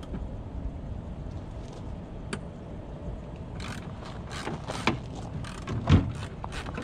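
Irregular clicks and knocks of hands and tools working at a Volvo VNL semi truck's headlight housing, mostly in the second half, with two louder knocks about five and six seconds in, over a steady low rumble.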